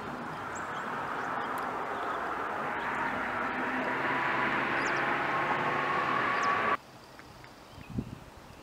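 Road traffic: a vehicle's engine and tyre noise, slowly growing louder, cuts off abruptly about seven seconds in. Faint bird chirps sit over it, and a single soft thump follows in the quieter stretch after the cutoff.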